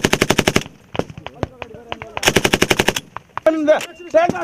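Belt-fed machine gun firing two short bursts of about a dozen rapid shots each, one at the start and one about two seconds in, with a few single shots between. Brief shouting near the end.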